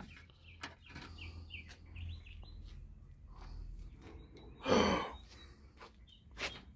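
Faint bird chirps in the background, with a short burst of noise a little under five seconds in and a small click shortly after.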